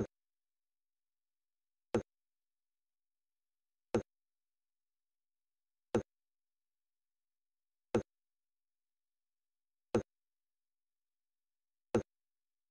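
Dead air: complete silence broken by a short, sharp click every two seconds, seven in all, evenly spaced like a tick.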